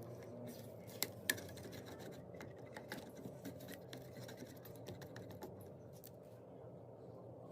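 Faint scattered light clicks and scratches, the clearest two about a second in, over a low steady hum.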